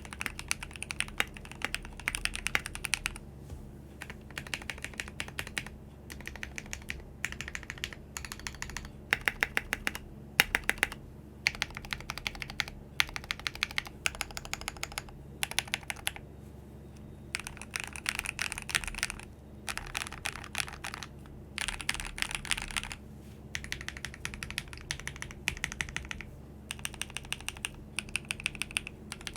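Typing on a Kbdfans Tofu60 60% mechanical keyboard with lubed and filmed Glorious Lynx linear switches, an aluminium plate in a foam-filled acrylic case and PBT Cherry-profile keycaps: crisp runs of quick keystrokes broken by short pauses, with a few louder single strokes standing out.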